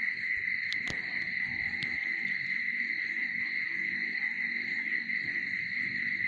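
Night insects, crickets, trilling steadily in a continuous high-pitched chorus, with a few faint clicks in the first two seconds.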